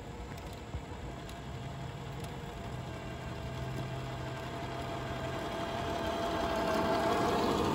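Radio-controlled scale semi-truck running steadily as it drives closer while towing a boat trailer, growing louder throughout.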